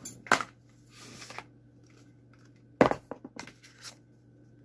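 Handling noise from a small plastic spray bottle being grabbed and moved about: a few sharp knocks and brief rustles, the loudest knock a little under three seconds in.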